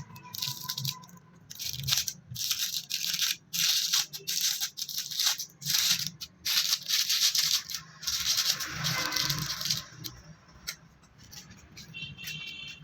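Repeated rough scraping or rubbing strokes, unevenly spaced at about two a second, stopping about ten seconds in.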